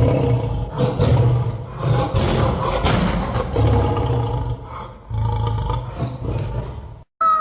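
A large animal roaring repeatedly in deep, rough calls, which cut off abruptly about seven seconds in. A higher, drawn-out pitched animal call starts just after.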